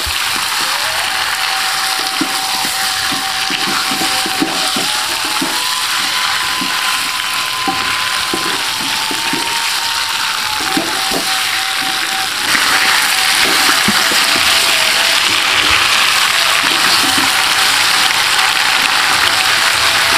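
Prawns in spice paste sizzling as they fry in an aluminium wok, with a wooden spatula stirring and scraping them against the pan. The sizzle grows louder about twelve seconds in.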